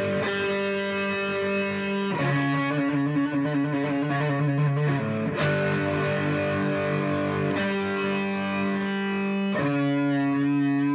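Solid-body electric 12-string guitar played through an amplifier: five chords strummed about two seconds apart, each left to ring, the paired strings giving it a natural chorus-like shimmer.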